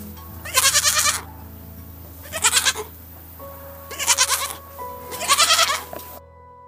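Goats bleating: four short wavering bleats about a second and a half apart, over steady background music.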